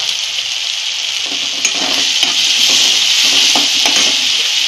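Chopped onion and tomato sizzling in hot oil in a kadhai. From about a second in until near the end, a steel spoon stirs and scrapes through them, with a few light clicks against the pan.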